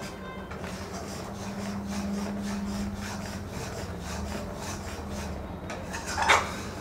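Flat metal spatula scraping and stirring thickening milk in a metal kadhai, a steady rasping rub as the milk is reduced to khoya. One louder scrape comes about six seconds in.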